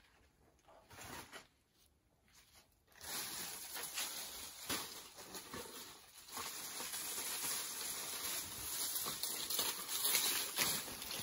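Dry banana leaves and plant stalks rustling and crackling as they are pushed aside and pulled at by hand. It starts about three seconds in and keeps going as a busy crackle.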